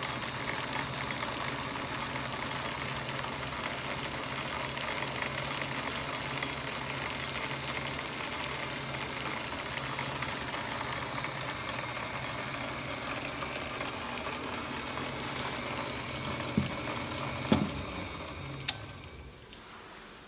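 1947 Atlas 12"x36" metal lathe running under power, its motor, belts and change-gear train turning with a steady mechanical running noise and low hum. Near the end come three sharp clicks, and then the running sound dies away.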